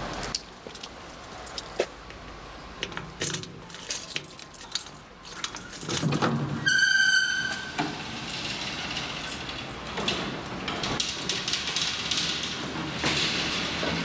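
Inside a 1976 Hages hydraulic elevator car: scattered clicks and rattles, then a loud electronic beep of under a second about seven seconds in, followed by the car's steady running noise with a hiss as it travels.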